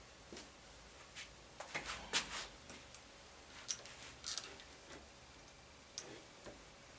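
A cloth wiping marker off a whiteboard: irregular short rubbing strokes, bunched about two and four seconds in, with a few single ones near the end.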